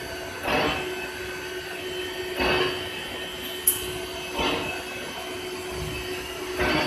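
CNC router with two spindles and a boring unit running, a steady hum with a few held tones. A short rushing surge comes about every two seconds, four times in all, and there is one sharp high click a little past halfway.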